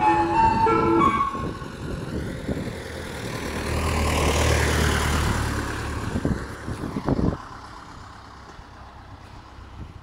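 Ice cream van's chime tune playing its last few notes, then the van drives past close by. Its engine and road noise build to a peak about four to five seconds in and drop off sharply about seven seconds in.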